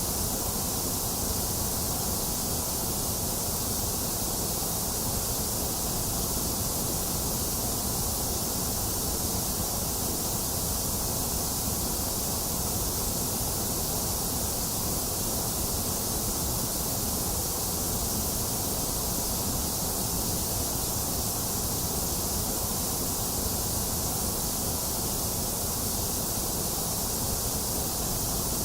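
Box fan running steadily together with steady rain: an even, unchanging hiss with a low whir beneath it.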